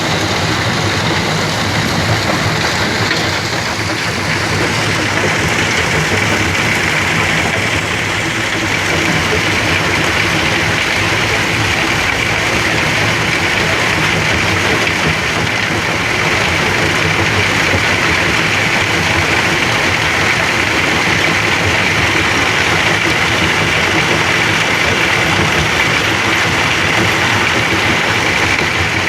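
Engine-driven sand grinding machine running steadily: a constant engine hum under a continuous hiss from the sand being ground.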